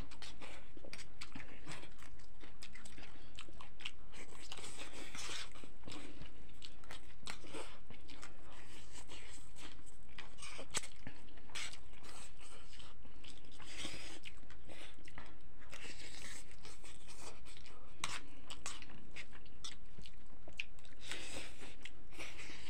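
Two people eating instant noodles: slurping strands, chewing, and forks clicking and scraping on plates, a string of short irregular sounds.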